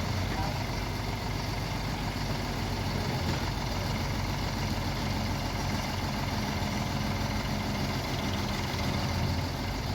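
Heavy diesel engine running steadily at low revs, an even low rumble with no revving or knocks.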